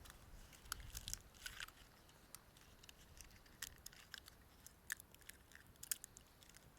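Small wood fire crackling in a wood-burning camp stove: faint, scattered pops and snaps at irregular intervals, the sharpest a little before and about a second before the end.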